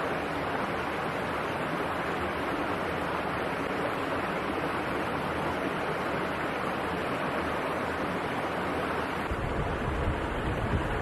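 Steady rushing of a fast mountain stream. About nine seconds in, low wind buffeting on the microphone joins it.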